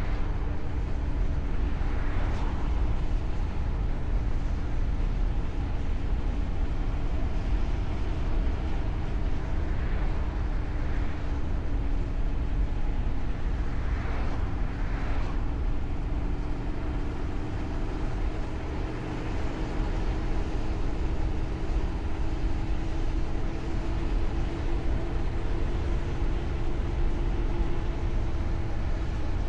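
A vehicle being driven: a steady low road and engine rumble with a constant engine hum that shifts only slightly in pitch.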